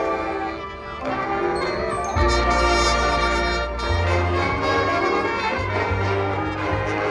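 High school marching band playing: brass chords over mallet percussion, with a deep, sustained bass note entering about two seconds in and moving up a step about four seconds in.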